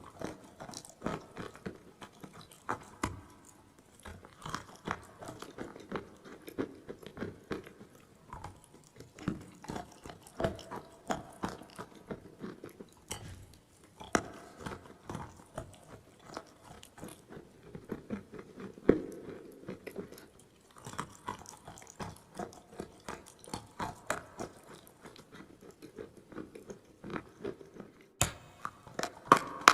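A person biting and chewing dry clay: a continuous run of sharp, irregular crunches, several a second, with a few louder bites.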